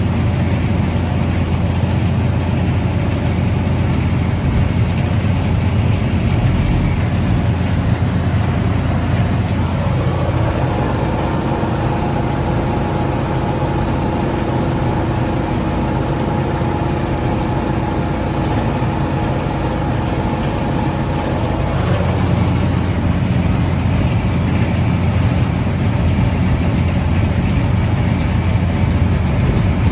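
Tractor engine running steadily under load while hay is being baled. From about a third of the way in until about two-thirds through, a steady mechanical whine rises above the engine, then drops away.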